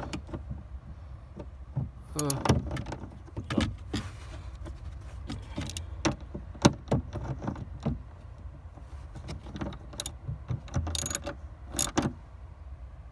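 Socket wrench tightening a bolt: irregular sharp clicks and small metallic knocks, some in quick clusters, over low handling rumble.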